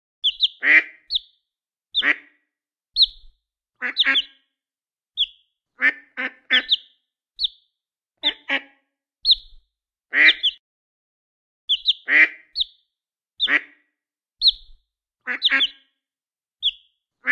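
Cartoon sound effect of a duck and a chick: short, high peeps from the chick alternating with the duck's fuller quacks, one call every second or so with clean silence between.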